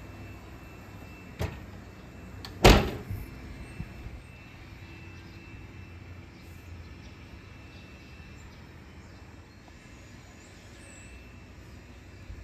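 Oven door swung shut: a sharp click, then about a second later a loud thud as the door closes, followed by a few small rattles.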